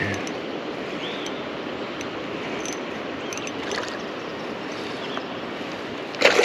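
Steady rushing water around a small boat on a river, with a short loud burst near the end.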